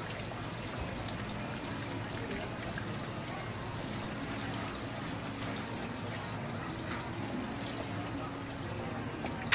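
Tap water running and splashing onto hands rinsing cut shellfish meat in a plastic colander; the flow stops about six seconds in. A sharp knock comes at the very end.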